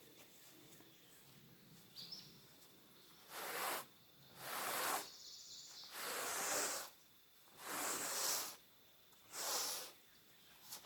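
Torch flame hissing in repeated bursts, about one every second and a half from a few seconds in, as it scorches the wooden tabletop surface.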